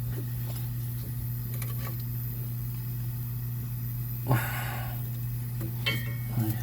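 Hand work on a minivan's suspension while a rubber bushing is being removed: a short scrape about four seconds in, then a couple of light metallic clinks of tools or parts near the end, over a steady low hum.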